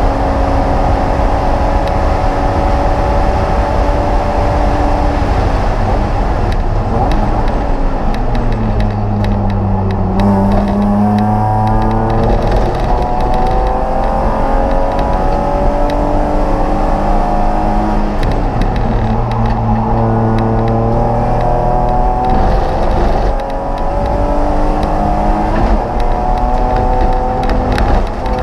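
Race car engine heard from inside the stripped, caged cockpit, running hard: the pitch climbs through gear after gear with short breaks at each upshift, and drops low twice, about 8 and 19 seconds in, as the car slows for corners before pulling back up.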